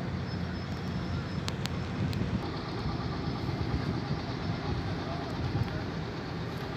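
Steady low rumble of engines or vehicles running in the background, with a few faint clicks.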